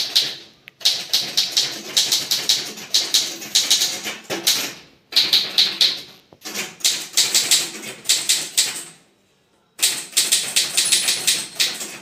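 Manual typewriter being typed on quickly: bursts of rapid key and typebar strikes broken by short pauses, one of nearly a second. Near the end the margin bell gives a short, faint, high ding, the sign that the line has reached the margin the typist set.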